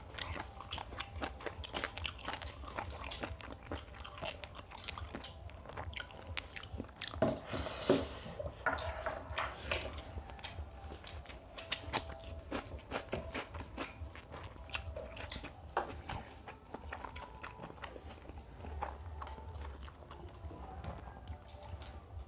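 Close-up eating sounds of two people eating mutton biryani with their fingers: irregular chewing, biting and crunching, including bites of raw onion.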